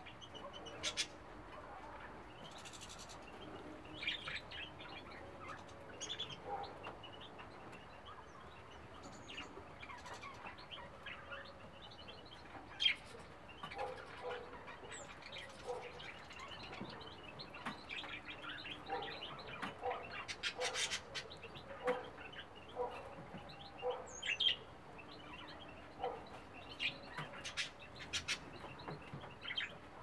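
Small songbirds chirping: many short, separate calls over a faint steady background, busiest in the second half.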